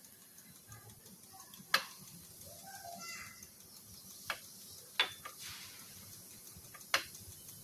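Four sharp, light clicks spaced one to two seconds apart: a silicone pastry brush knocking against a ceramic bowl and plate while oil is brushed onto dried pollock.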